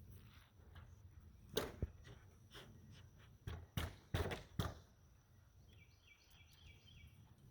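A handful of short knocks and thuds from work on the timber framing: two about a second and a half in, then four in quick succession around the middle, over a low background rumble.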